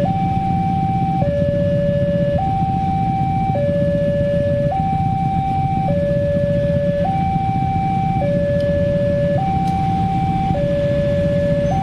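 Railroad level-crossing warning alarm sounding a steady two-tone signal, a higher note and a lower note alternating about every second, warning that a train is approaching. A low steady rumble runs underneath.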